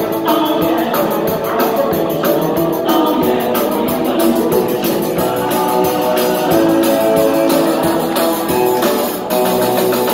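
A live rock-and-roll band playing loud. A drum kit keeps a steady beat under guitar and keyboard, with a singer's voice.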